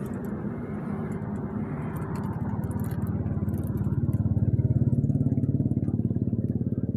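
An engine running with a fast, even firing pulse, of the kind a motorcycle makes. It gets louder about four seconds in.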